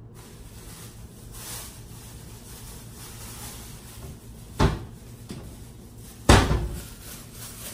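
Kitchen cabinet doors banging shut: a sharp knock a little past halfway, then a louder one about a second and a half later, with faint rustling between.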